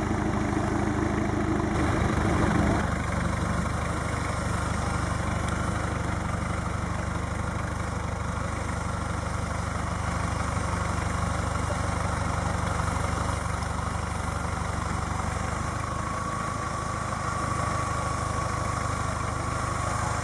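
A Toyota Land Cruiser BJ60's four-cylinder diesel engine idling steadily. It is slightly louder for the first three seconds, then settles into an even run.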